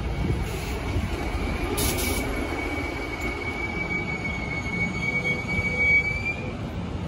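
Steel wheels of Amtrak bi-level passenger cars rolling slowly past with a low rumble. One long, steady, high-pitched wheel squeal starts about two seconds in and fades out near the end, with a brief hiss just as it begins.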